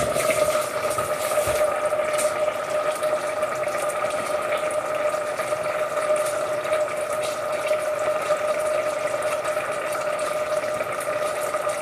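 Steady watery hiss from risotto simmering in its pan, with a constant hum running under it.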